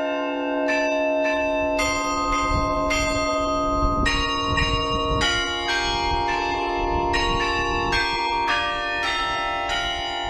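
Church bells swung and ringing in a belfry, a new stroke about twice a second over the long, overlapping hum of the earlier strokes.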